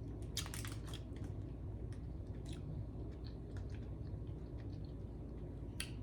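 A person chewing and biting candy: soft, irregular mouth clicks and crunches, a few louder ones close together about half a second in.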